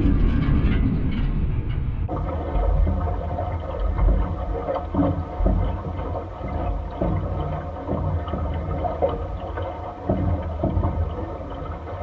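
Contact-microphone recording of fence wires vibrating in the wind: a dark, low rumbling drone. About two seconds in it cuts to another take where many steady ringing tones hang over the low rumble, broken by scattered irregular knocks.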